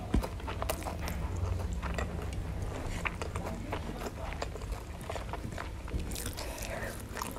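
Close-miked chewing of a person eating rice and fried catfish by hand, many small wet mouth clicks, with soft sounds of fingers gathering rice on the plate.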